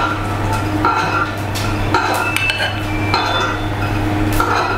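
Metal spoon clinking against a small stainless-steel saucepan as sauce is scooped out, several light ringing clinks about a second apart, over a steady low hum.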